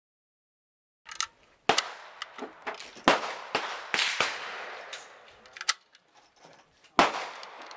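Draco AK-47 pistol in 7.62×39 fired in slow, single shots, starting about a second in, each crack trailing off in an echo, with a few fainter shots between the loudest ones.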